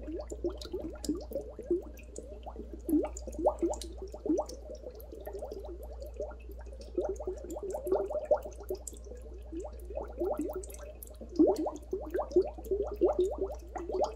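Dry ice bubbling in toilet bowl water. As it sublimates it sends up a constant stream of carbon dioxide bubbles that pop and gurgle as quick, uneven bloops rising in pitch, several a second.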